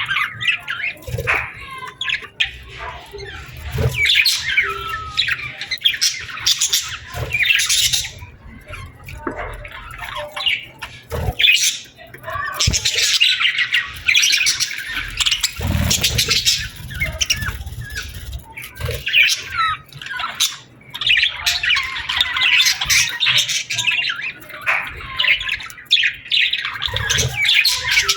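Small birds chirping and squawking in busy bursts of chatter, with a few low thuds among them.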